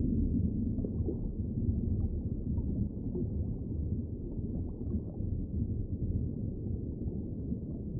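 A low, steady rumble with nothing high-pitched in it, slowly getting quieter.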